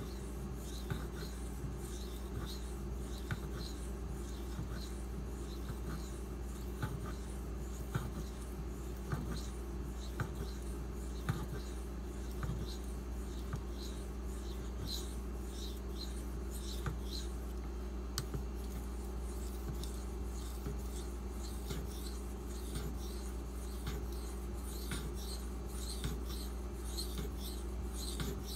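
Ganzo folding knife's 440C steel blade being stroked across a 4000-grit Nubatama Ume waterstone: repeated short scraping strokes with occasional light ticks.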